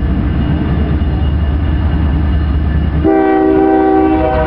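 Union Pacific freight train's lead GE AC45CCTE diesel locomotive and trailing units rumbling steadily as they approach. About three seconds in, the locomotive's chord air horn sounds a loud blast.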